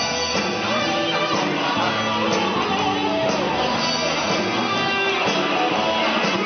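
A rock band playing live: electric guitars over drums, one steady, continuous stretch of the song.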